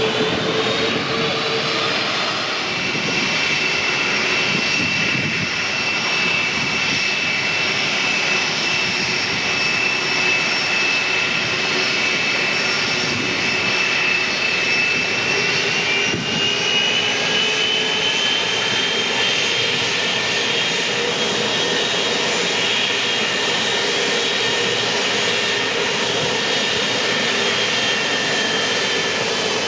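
Jet airliner engines running with a steady whine over a rushing noise; the whine rises slightly in pitch about halfway through.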